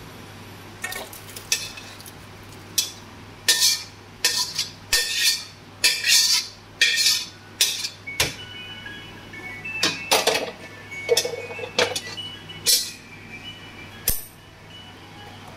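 Metal spoon scraping and clanking against an aluminium kadai and a steel pot as the curry is scooped from one into the other. It comes as a run of irregular scrapes and clinks, some leaving a brief metallic ring.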